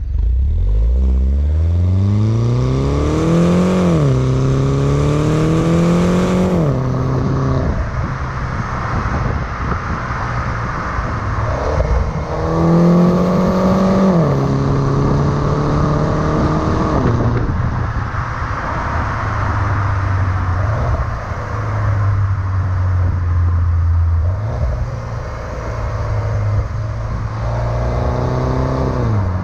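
2009 Mini Cooper S R56's 1.6-litre turbocharged four-cylinder engine accelerating, its pitch rising and then dropping at each automatic upshift, in two pulls. It then settles into a steady drone at cruise, with one brief rise and fall near the end.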